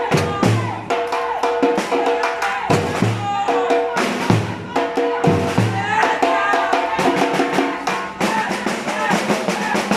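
Batucada: a Brazilian samba drum ensemble playing a driving rhythm, deep drum strokes about once a second under rapid snare and rim hits, with pitched tones holding and gliding over the drumming.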